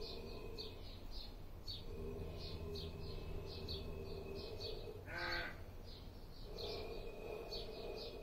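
Outdoor birdsong: a small bird repeats a short, high, falling chirp about twice a second, and a crow gives one harsh caw about five seconds in.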